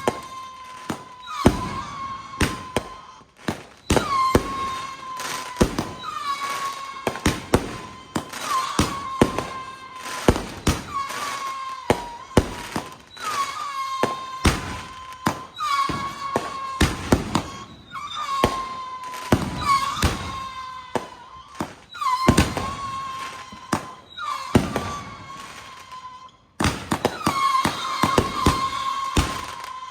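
Fireworks going off in a steady series: a whistling shot about every second and a half to two seconds, each whistle dipping at the start and then holding one pitch, amid sharp bangs and crackling.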